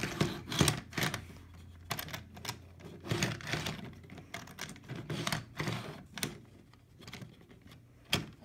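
An HO scale plastic boxcar being handled and set onto the track, giving irregular clicks and clatters of plastic wheels and couplers against the rails.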